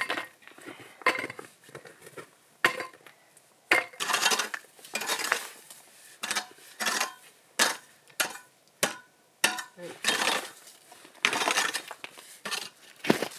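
Pickaxe hacking and scraping frozen manure off icy, snow-covered ground: sharp metallic knocks and short scrapes, irregular, about one a second.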